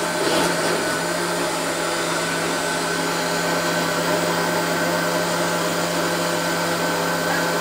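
Countertop blender motor running steadily at an even pitch, puréeing leafy greens and vegetables into a green smoothie.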